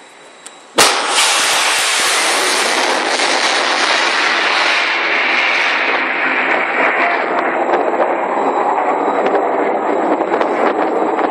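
SM-2 Standard surface-to-air missile launched from a guided-missile cruiser: a sudden loud blast about a second in, then the rocket motor's loud, steady rushing noise as the missile climbs away, its highest hiss thinning after about five seconds.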